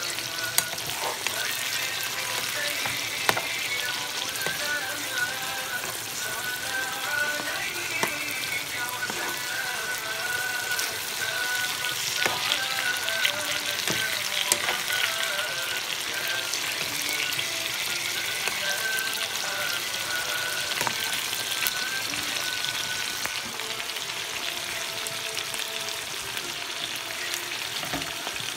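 Fish curry sizzling and crackling in a frying pan, with a metal spoon now and then clicking against the pan. Soft music plays underneath.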